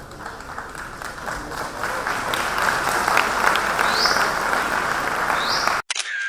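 Audience applauding, swelling louder about two seconds in, with two short rising whistles; it cuts off suddenly near the end.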